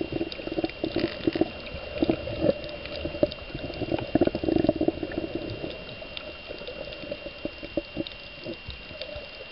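Water bubbling and gurgling around a camera held underwater while snorkeling, in irregular bursts that thin out after about five seconds, with a faint steady high tone under it.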